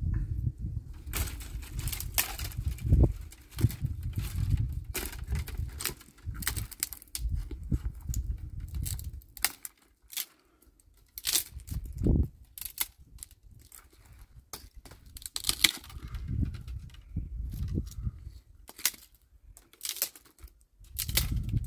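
Dry sticks and branches being snapped and broken by hand for firewood: many sharp cracks and crunches at irregular intervals, with a short lull about halfway through.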